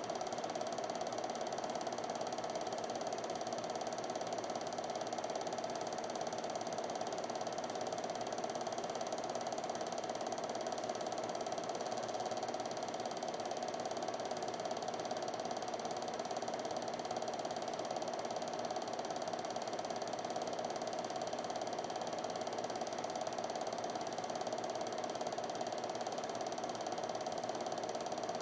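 Film projector running steadily, the even mechanical sound of its film transport with no other events.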